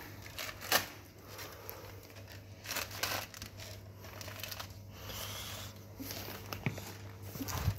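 Rustling and scuffing of a person crawling on hands and knees across a concrete floor in a breathing-apparatus harness and air cylinder, with a few short swishes and soft knocks as hands and gear touch down. A faint low steady hum lies underneath.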